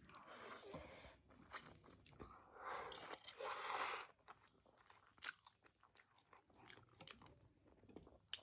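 A person chewing and crunching food close to the microphone, with soft scattered mouth clicks and a louder noisy stretch about three seconds in.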